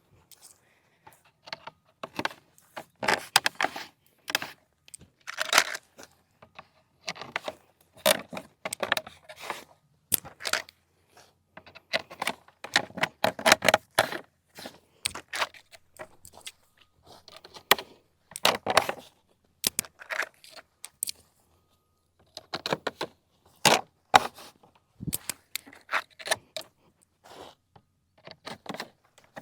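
Parts of a MossBack Safe Haven fish habitat being handled and fitted together: irregular clatter, knocks and scraping, in short bursts with brief pauses between them.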